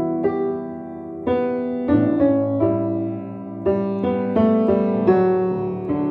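1887 Blüthner style VIII grand piano played unrestored, a passage of chords struck one after another, each ringing on into the next. The tone is warm despite hammers worn very soft.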